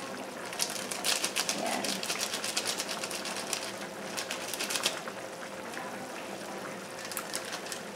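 Chicken curry broth simmering in a frying pan, with rapid crackling and popping of bubbles, thickest in the first half and again briefly near the end.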